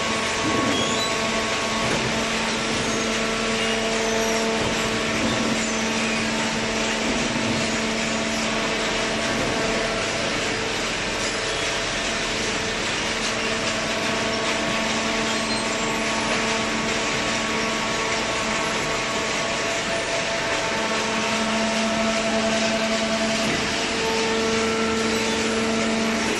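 Horizontal hydraulic cardboard baler running: a loud, steady machine hum and hiss with a few held tones, with no stops or impacts.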